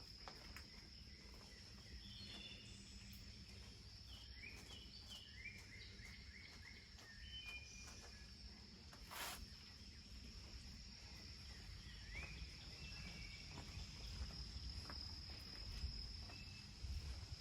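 Faint woodland ambience: a steady high-pitched insect drone, with short bird calls scattered through it and a quick run of chirps about five seconds in. Underneath is a low rumble that grows a little louder near the end, and there is one sharp tick about nine seconds in.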